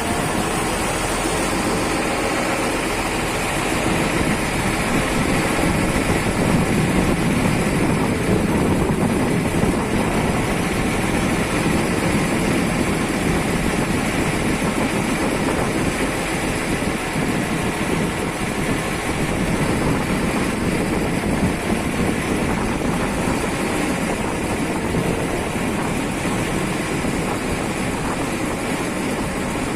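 Ferry boat's engine running steadily.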